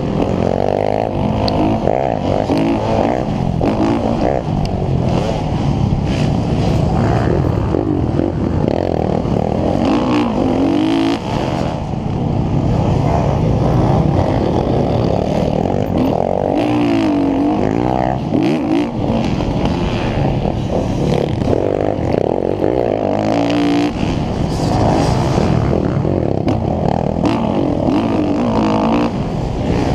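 Motocross bike engine at full race effort on the onboard microphone, its pitch rising and falling again and again as the rider accelerates out of the turns and shifts through the gears.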